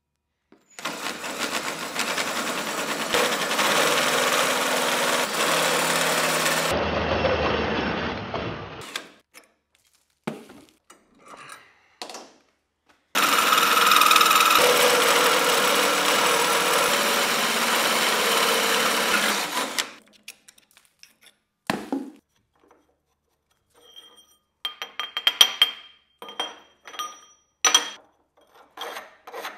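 Cordless drill spinning a hole saw through steel tube held in a tube notcher, coping the tube end, in two long steady cuts. Near the end, a file scrapes the burr off the coped end in short quick strokes.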